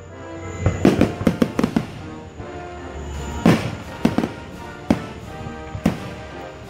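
Aerial fireworks going off in the sky: a quick run of bangs about a second in, then single bangs spaced through the rest, with music playing underneath.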